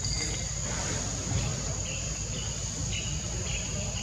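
Insects, crickets or cicadas, keep up a steady high-pitched drone over a low rumble. A few short, high chirps come in the middle.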